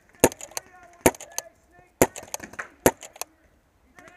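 Pump paintball marker firing four shots about a second apart, with smaller clicks and rattles between them from the pump being worked.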